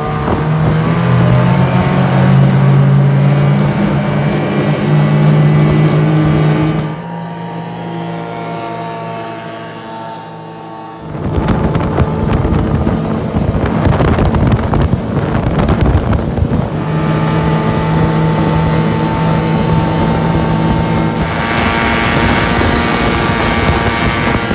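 Modified 9.8 hp outboard motor running steadily at high revs, driving a small aluminium boat on the plane, with water spray and wind rushing past. A few seconds in, the engine sound drops away and a rush of wind and water takes over for several seconds, before the steady engine note comes back.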